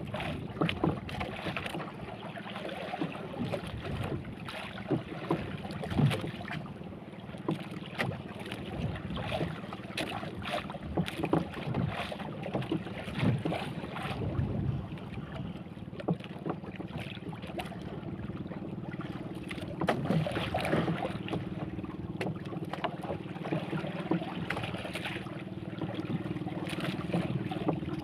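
Water slapping and knocking against the hull of a small boat on choppy sea, with wind on the microphone. A steady low drone runs underneath, and a second, slightly higher drone joins about two-thirds of the way through.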